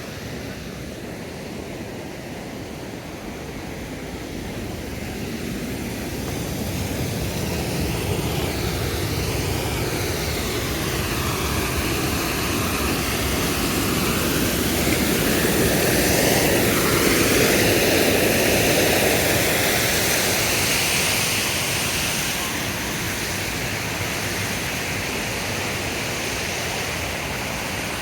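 Steady rush of falling water from a waterfall. It swells to its loudest a little past the middle, then eases off toward the end.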